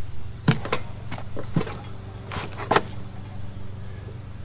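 A few sharp metal knocks and clanks, about half a second in, at 1.6 s, and a cluster near 2.5 s, as the hitch pin of the John Deere 1025R's push blade mount is worked free. Under them runs a steady low hum and a constant chirring of crickets.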